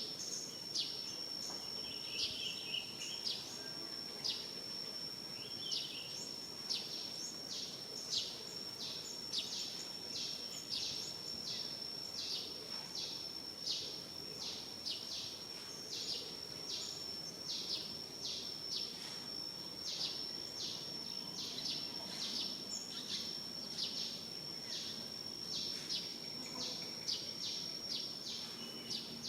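Natural outdoor ambience: a steady, high-pitched insect drone, with short high chirps repeating roughly twice a second over it.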